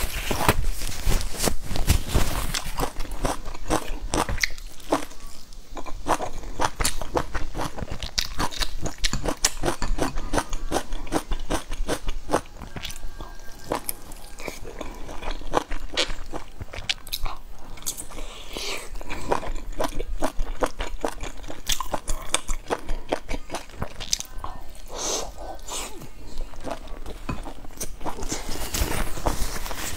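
Close-miked eating sounds: a person biting, crunching and chewing food in a dense run of crisp, rapid clicks.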